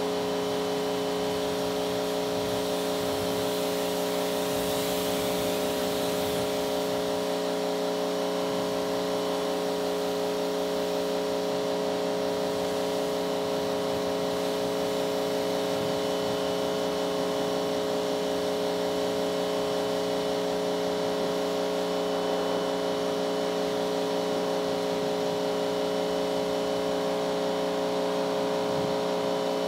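Pressure washer running with a steady motor hum, its water spray hissing, loudest about four to six seconds in.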